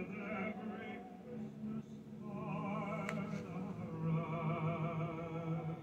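Operatic-style singing, long held notes with vibrato in two phrases, with one sharp click about three seconds in.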